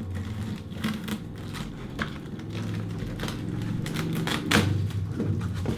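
Boxed computer being unboxed by hand: scattered clicks and taps of packaging and parts, about one a second, over a steady low hum.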